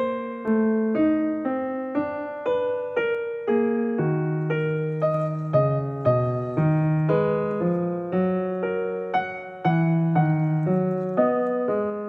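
Background piano music: a steady run of struck notes, about two a second, each fading after it is played.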